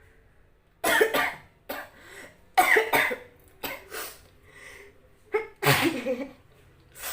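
A woman coughing hard in a fit of about seven short explosive bursts, some in quick pairs. Her nose and throat are being irritated by a cotton cloth pushed into her nose to set off sneezing.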